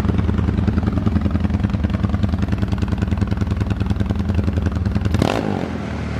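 Single-cylinder four-stroke engine of a Honda CG Today, built up to 370 cc, idling steadily through an aftermarket exhaust, with one short noise about five seconds in.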